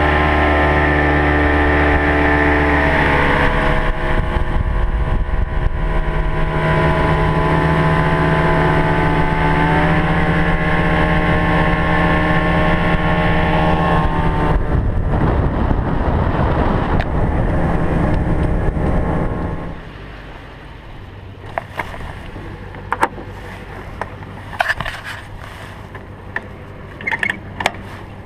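Outboard motor of a 25-foot Blue Wave bay boat running at speed, its pitch shifting in small steps a few times, then turning rougher and noisier. About twenty seconds in the sound drops sharply, and scattered sharp clicks and knocks follow from handling the boat trailer's hand winch.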